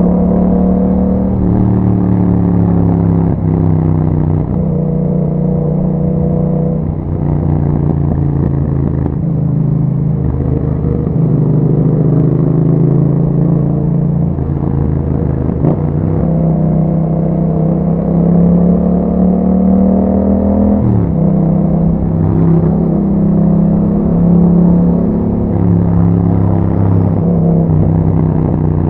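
Yamaha MT-07's 689 cc parallel-twin engine breathing through an Akrapovic exhaust with a dB killer, heard on the move. The note climbs and falls with throttle and gear changes, with clear shifts about 4, 7, 16 and 21 seconds in.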